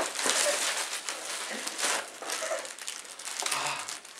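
Packaging being handled and unpacked, crinkling and rustling irregularly.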